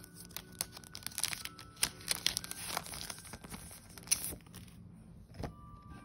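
Plastic sticker sheet crinkling and crackling as it is handled, with a sticker being peeled off its backing. A dense run of crackly rustling for a few seconds, then quieter with a single tap near the end.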